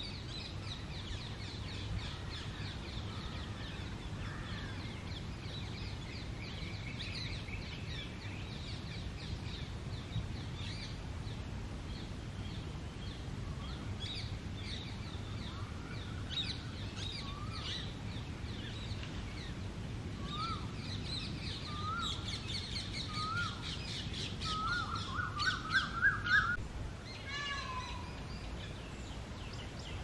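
Common mynas calling in a chattering chorus of harsh, squabbling calls. Past the middle comes a string of short rising notes that speeds into a loud rapid series, the loudest part, before it breaks off.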